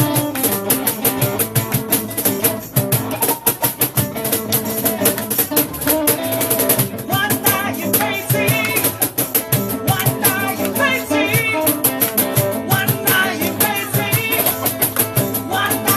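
Ukulele ensemble strumming a song at a brisk, steady rhythm, with voices singing along from about seven seconds in.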